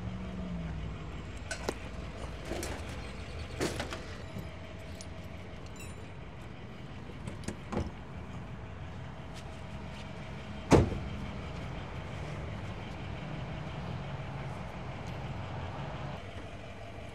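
A vehicle engine idling steadily, with scattered knocks and clicks of work over it, the sharpest knock about eleven seconds in.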